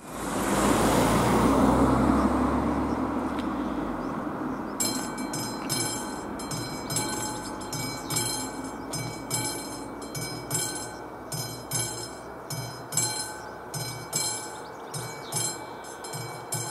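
A car driving over the level crossing, loudest in the first two seconds and fading away by about four seconds in. About five seconds in, the crossing's classic warning bell starts ringing in quick, evenly repeated strikes, the crossing signalling an approaching train.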